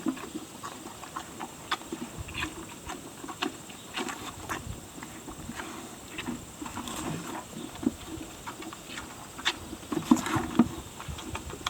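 Calf licking and slurping the last of the milk from its feeding bucket: irregular small clicks and knocks, a little louder about ten seconds in.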